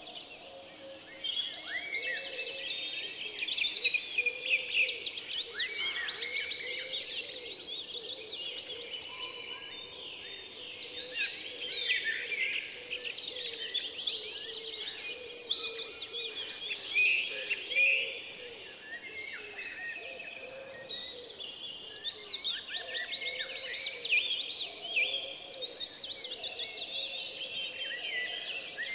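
Several songbirds singing and chirping together in a dense chorus, with a fast high trill standing out in the middle.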